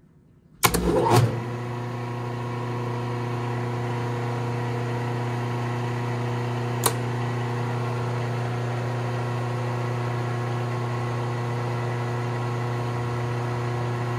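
Three-phase idler motor of a rotary phase converter, fed through a Phase-a-matic, switched on with a loud clunk under a second in and then running with a steady low electrical hum. A single sharp click about seven seconds in.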